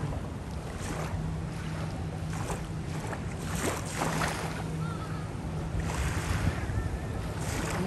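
Wind buffeting the microphone in gusts over a steady low hum, with a couple of faint high chirps.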